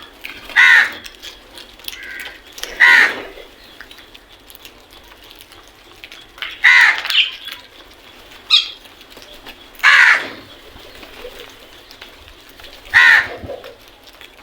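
Crows cawing: single harsh caws every second or few, about six in all, one of them doubled and one shorter and higher.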